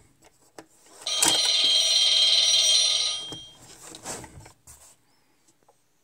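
Animated Halloween novelty rotary phone ringing loudly and steadily for about two seconds with a shrill, alarm-like ring, the incoming-call ring that is answered to hear a spooky message. Light clicks come first as the handset is set back on its cradle.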